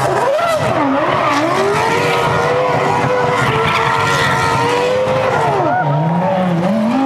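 Red Bull Formula One car doing a burnout, its engine revving up and down repeatedly while the rear tyres squeal and skid on the tarmac.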